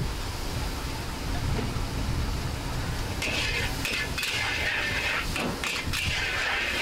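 Char kuey teow being stir-fried in a wok over a gas burner: a low rumble, then about three seconds in a loud sizzle starts suddenly, with the metal spatula scraping and knocking against the wok.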